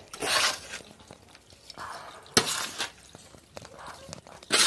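Potting substrate being poured from a plastic scoop into a plant pot, in three short pours about two seconds apart.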